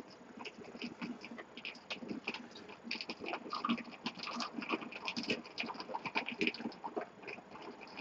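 Close-miked eating and drinking mouth sounds: irregular quick clicks and smacks of chewing and sipping.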